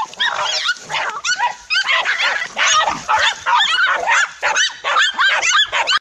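Dogs barking and yelping during a fight, a dense run of short, high cries that rise and fall and overlap without a break. It cuts off suddenly at the end.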